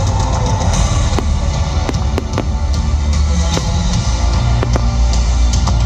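Fireworks exploding in scattered, irregular sharp bangs and crackles over loud music with a heavy bass.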